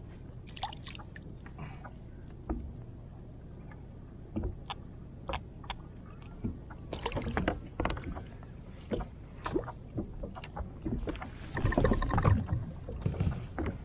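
Scattered clicks and knocks of hands handling fishing gear on a fishing kayak, with low water and boat noise underneath. The knocking grows busier about halfway, with a louder stretch of rustling and clattering about two seconds before the end.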